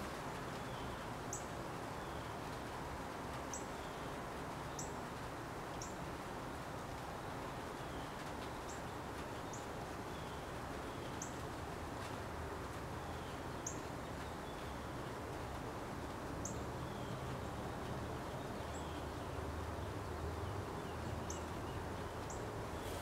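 About a dozen short, high chirps at uneven intervals of one to three seconds, over a steady low hum and hiss.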